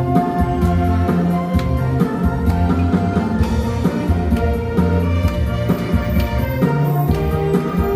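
Orchestra playing a pop arrangement backed by a drum kit: sustained melody notes over a strong bass line and a steady beat.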